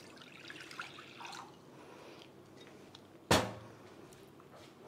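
Water poured from a glass measuring jug into a glass bowl, a faint splashing trickle in the first second or so. About three seconds in comes one sharp knock of glass on a hard surface.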